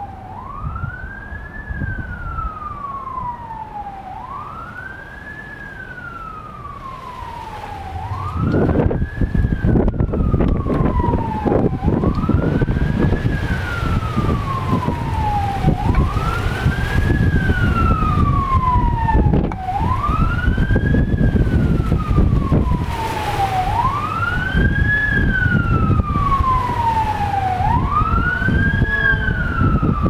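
A siren wailing in a steady rise-and-fall cycle, about one sweep every four seconds, each quick rise followed by a longer fall. Strong Santa Ana wind gusts buffet the microphone, growing much louder about eight seconds in.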